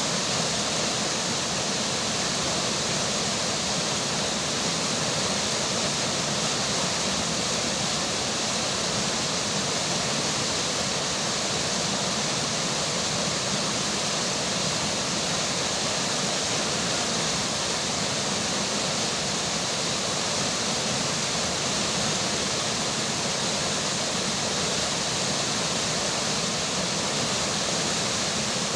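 River water flowing steadily under falling rain: an even, unbroken rushing hiss with no distinct events.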